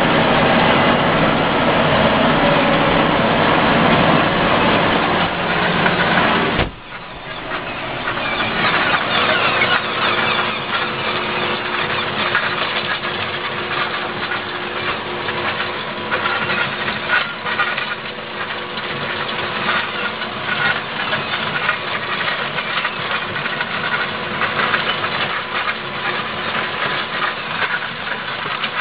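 A John Deere 6930 tractor's six-cylinder diesel runs steadily under load while pulling a plough, heard from on board. About seven seconds in the sound drops sharply. After that it is thinner, a steady hum with a busy rattle.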